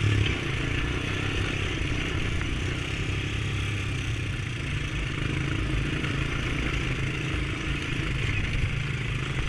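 Honda ATV engine running steadily at cruising speed, a low even drone with no change in pace, and a slightly louder bump right at the start.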